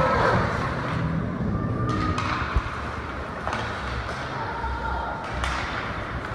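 Ice hockey game in a rink: a cheer fading out at the start, then a murmur of spectators' voices with a few scattered knocks of sticks, puck and boards, the sharpest about two and a half seconds in.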